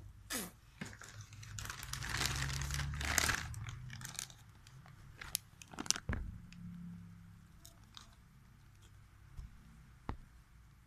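Handling noise: a few seconds of crinkling and rustling, followed by several sharp clicks and knocks, as the Firebird air impact wrench and its socket are put back into the foam-lined case.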